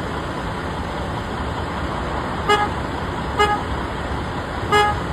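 Steady road traffic noise with three short horn toots: one about halfway through, another a second later, and a third near the end.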